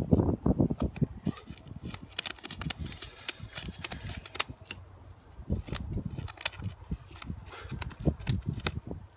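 Scissors snipping through a rooster's primary flight feathers: a run of sharp clicks, with low thumps, loudest at the start.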